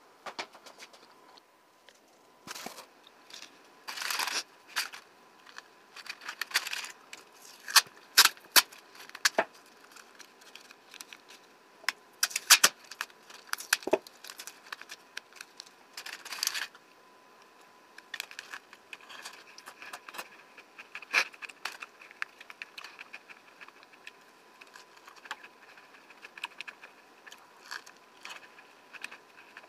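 Aluminium foil crinkling and crackling as a foil-wrapped sandwich is opened and handled: a busy run of sharp crackles for the first half, then lighter, sparser crinkles.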